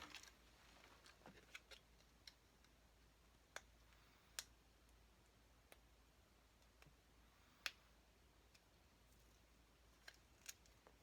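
Near silence: quiet room tone with about ten faint, sharp clicks and ticks scattered at uneven intervals, the sound of small objects being handled.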